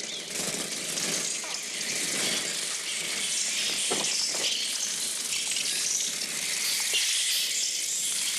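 A large flock of grackles calling all at once: a dense, steady chorus of high squeaks and chatter with a few sharper chucks scattered through it.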